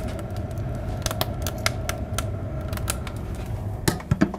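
Fire crackling as it catches under a load of split logs in a Solarfocus Therminator II log boiler's chamber, over the steady hum of the boiler's fan. Near the end the metal chamber door is pushed shut with a few clunks.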